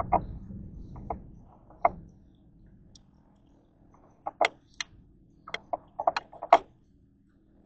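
Scattered light clicks and knocks from handling a hand file and a phosphor bronze bolster plate during hand-fitting of the plate's slot, with a quick cluster of them between about four and seven seconds in. A low hum fades out in the first two seconds.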